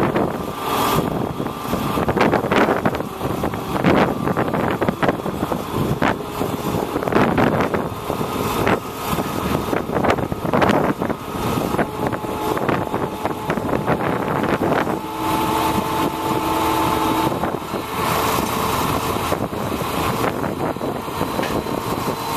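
Digger derrick truck running with its Altec hydraulic boom being worked from the operator's seat: a steady mechanical running sound with a whine that comes in about two-thirds of the way through. Gusty wind buffets the microphone.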